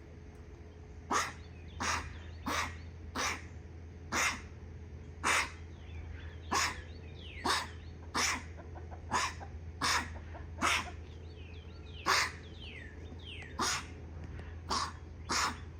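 An animal coughing over and over: short harsh hacks about once a second, some louder than others. Faint high, falling chirps come in between them in the middle.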